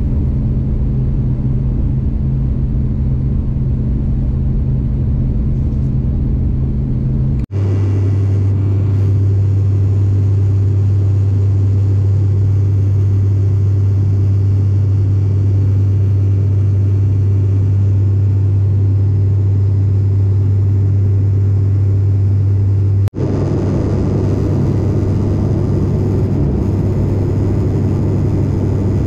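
Propeller airliner's engines and propellers droning steadily in the cabin right beside the propeller, a loud low hum with a strong steady tone. The drone shifts abruptly twice, about 7 and 23 seconds in.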